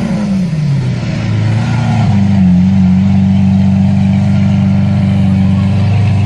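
Lamborghini Aventador's V12 engine just after a start-up: the revs fall away from the start-up flare over the first second or so, then settle into a steady idle about two seconds in.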